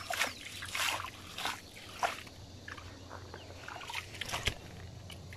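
Hands sloshing and splashing in shallow stream water among stones, in short irregular splashes.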